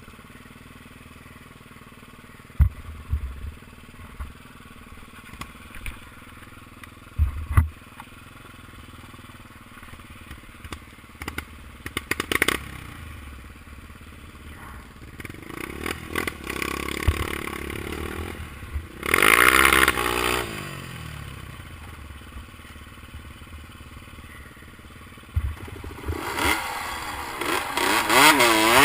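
Enduro motorcycle engines revving as the bikes ride past: one passes loudly about two-thirds of the way through and another approaches, rising in pitch, near the end. A few dull thumps come earlier.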